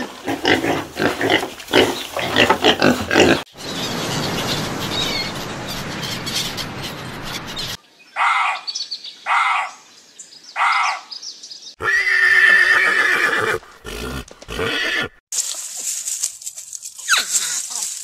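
A quick run of different animal sounds: piglets grunting and squealing for the first few seconds, then a steady noisy stretch. A little before halfway a deer fawn bleats three times in short calls, followed by more brief animal calls near the end.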